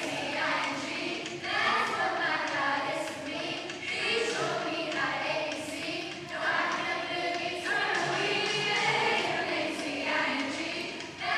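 Children's choir singing together in short phrases of a second or two each.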